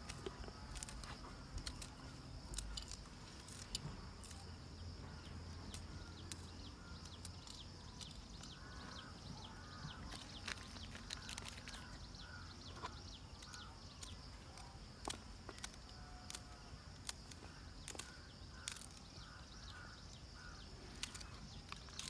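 Fresh pea pods being split and shelled by hand, with small scattered clicks as the pods snap and peas drop onto a steel plate. A steady high hum and a few short chirps sit underneath.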